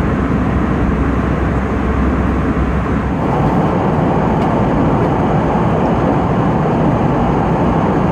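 Steady rush of cabin noise inside an Airbus A320-214 airliner, air and engine noise heard from a forward cabin seat. About three seconds in, the deep rumble drops and the sound turns brighter.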